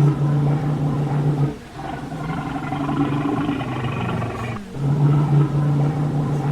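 A large wild animal giving three long, drawn-out roaring calls, each held at a steady low pitch and separated by short breaks.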